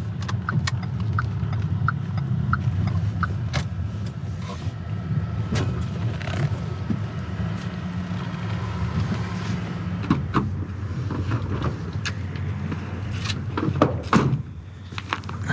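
Renault Scénic cabin noise while driving: a steady low engine and tyre rumble, with a run of short, high, evenly spaced ticks in the first three seconds. Near the end the rumble drops away and there are a few sharp knocks.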